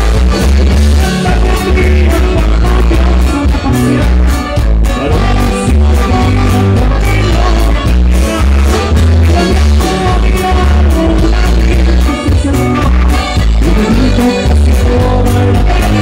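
Live norteño band playing a romantic corrido for dancing, with singing over a steady bass line and drum beat.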